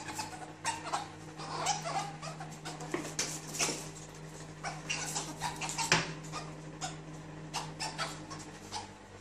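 A cat and a ferret play-fighting on a tiled floor: scuffling, with many quick taps and clicks of paws and claws on the tiles and a few short soft animal squeaks. A steady low hum runs underneath and stops near the end.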